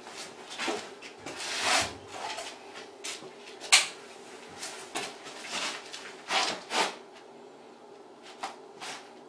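Handling noises from getting a pellet gun ready to fire: a string of short, irregular scrapes and rubs with clicks, one sharper click about four seconds in, thinning out near the end.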